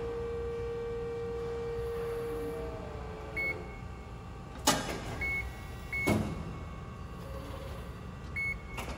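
Amada FBD-5020 hydraulic press brake running, its hydraulic unit giving a steady hum with a held tone that fades out about two and a half seconds in. Four short electronic beeps come from the control keypad as it is operated, and two sharp clacks about a second and a half apart fall near the middle.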